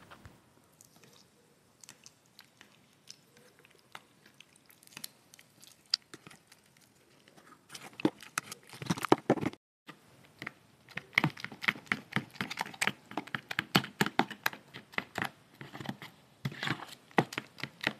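Fork stirring and mashing soft tallow soap paste with water in a plastic tub: wet squishing with clicks and scrapes of the fork against the tub. The clicks are sparse at first and become a rapid, busy stir from about eight seconds in.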